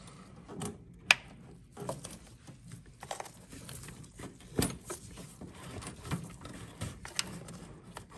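Irregular clicks, taps and rubbing as a speedometer cable and its rubber grommet are worked by hand through the firewall hole. One sharp click about a second in is the loudest.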